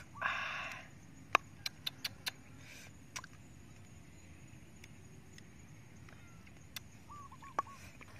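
A brief scrape as a plastic pestle is drawn out of a mortar, then a handful of light, sharp clicks, with a short bird chirp near the end.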